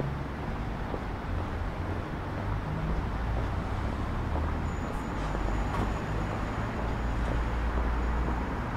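City street ambience: a steady low rumble of road traffic from passing vehicles. A faint, thin, high whine comes in about five seconds in and lasts a couple of seconds.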